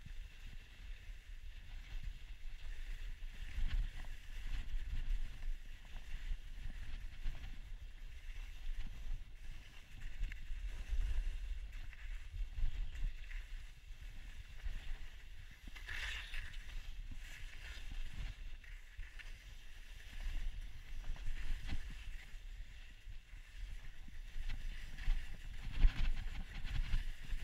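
Wind rumbling on the microphone over the hissing scrape of a rider sliding down packed, chopped-up snow, with louder scraping bursts about sixteen seconds in and near the end.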